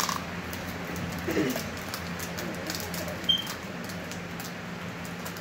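Foil Pokémon booster-pack wrappers crinkling and tearing open by hand, with scattered faint crackles over a steady low hum. A short sharp click a little over three seconds in is the loudest moment.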